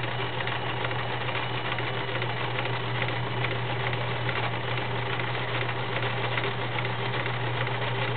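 Kenmore model 1931 convertible sewing machine sewing steadily at an even speed: its motor hums under the fast, regular tapping of the needle as it runs a built-in stretch stitch.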